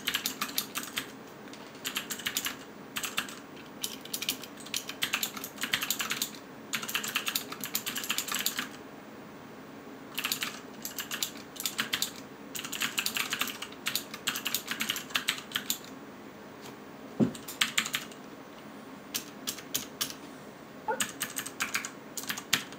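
Typing on a Ducky DK9008G2 Pro mechanical keyboard with clicky Cherry MX Green switches (heavy, 80 g actuation). The keys click rapidly in bursts of several seconds, with short pauses between the bursts.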